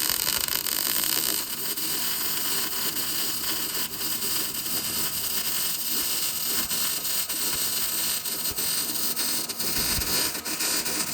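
Welding arc on a steel floor-pan patch: a continuous crackling hiss full of fine irregular pops, held steady as a bead is run.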